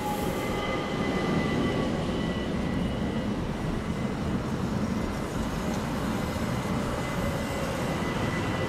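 ÖBB Cityjet (Bombardier Talent) electric multiple unit passing close by: wheels rumbling on the rails, with a steady high whine from its electric drive.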